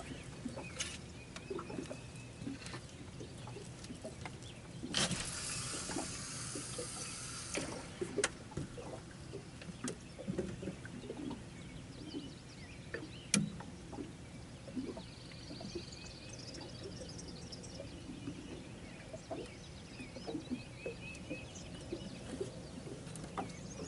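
Quiet outdoor ambience with faint bird chirps and scattered small knocks. A burst of hissing noise comes about five seconds in and lasts about three seconds.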